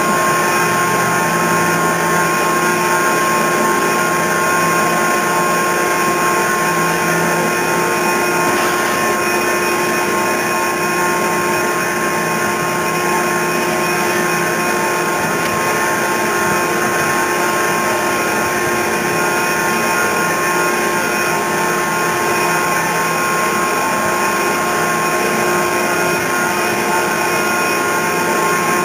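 A motor-driven machine running steadily at constant speed: an even rushing noise with steady whining tones over it, unchanged throughout.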